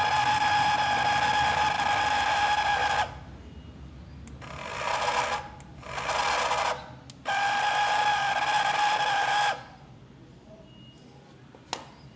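Small DC toy motor of a home-made cardboard RC truck whirring in bursts as the remote's buttons are pressed. It runs for about three seconds, then makes two shorter, rougher runs, then another two-second run. A single click comes near the end.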